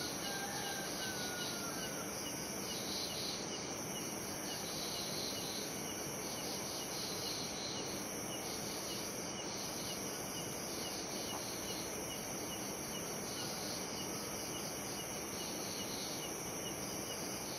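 Steady chorus of night insects chirping: dense high trilling with a regular pulse, and a faint falling whistle in the first two seconds.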